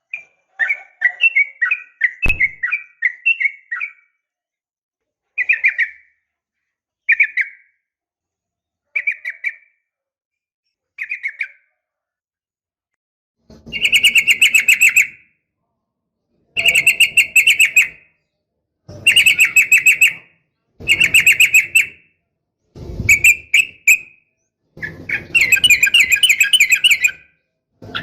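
Yellow-vented bulbul (trucukan) calling, given as a female calling a male, used as a lure to set males singing. It opens with a bubbly chattering run, then short phrases about two seconds apart, and from about halfway louder ringing phrases repeat every two to three seconds. A single sharp click comes about two seconds in.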